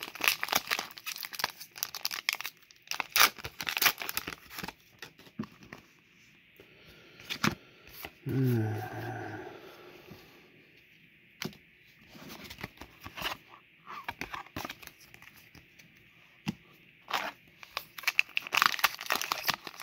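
Foil Pokémon booster pack wrappers crinkling and tearing open, with bursts of crackling at the start and again near the end, and a quieter stretch of scattered clicks from the cards being handled in between.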